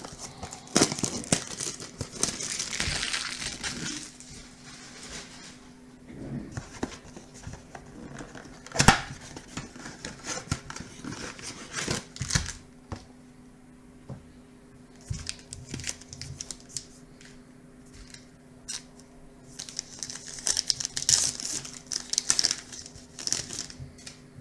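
Plastic shrink wrap crinkling and tearing as it is peeled off a blaster box of baseball cards, then the cardboard box being handled, with scattered knocks, the sharpest about nine seconds in. Near the end comes more crinkling as a card pack wrapper is handled and torn.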